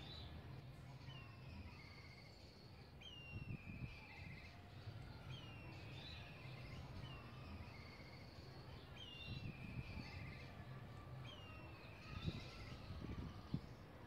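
Black kites calling overhead: repeated whistled whinnies, each a short high note sliding into a quavering trill, coming every two seconds or so. Under the calls runs a steady low hum of background noise, with a few dull knocks near the end.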